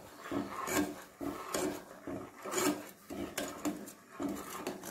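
Spoon scraping round the bottom of a saucepan while stirring sugar syrup with cardamom pods, a rhythmic rasp of about two strokes a second.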